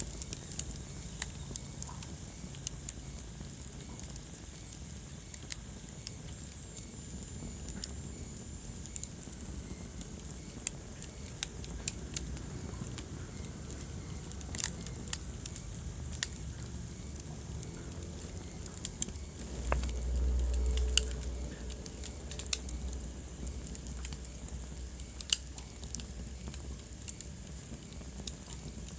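Wood fire burning in a fireplace, crackling with irregular sharp pops over a low steady rumble of flames. The rumble swells briefly about two-thirds of the way through.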